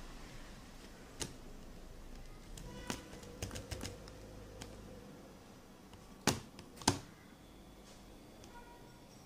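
Fluffy homemade slime of glue, laundry detergent and shaving foam being pressed and poked with fingers on a plastic plate: scattered sharp clicks and pops, a quick cluster about three seconds in and the two loudest a little after six and seven seconds.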